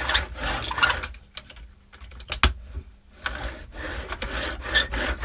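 Paint roller in a plastic paint edger rolled back and forth over a board with wet paint: sticky crackling and rolling with small plastic clicks, and a sharp click about two and a half seconds in.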